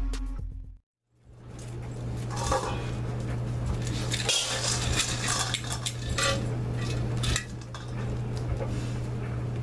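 Dry dog kibble rattling and clinking as it is poured and shaken from a metal container into a metal dog bowl, over a steady low hum. Background music fades out just before it starts.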